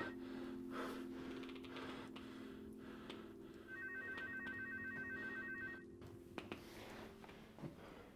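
A telephone ringing with a fast, trilling electronic ring: the end of one ring right at the start, then a ring of about two seconds nearly four seconds in. A low steady drone lies underneath and stops about six seconds in, with a few faint knocks and rustles.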